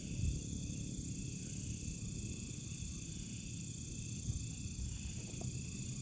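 Steady, unbroken high-pitched chorus of night insects, with a low rumble of microphone noise underneath.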